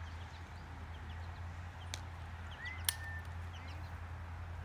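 Faint bird chirps, one short call about two and a half seconds in, over a low steady hum, with two light clicks, the sharper one about three seconds in.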